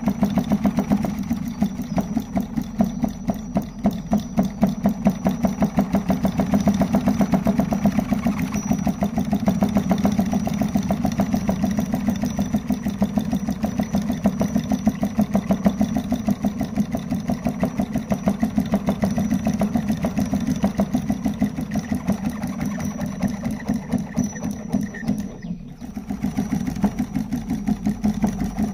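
Homemade solenoid engine running, its neodymium magnet driven back and forth by a copper coil to turn a shaft, making a fast, even mechanical clatter with a faint steady high tone. The sound drops out briefly about 25 seconds in, then goes on as before.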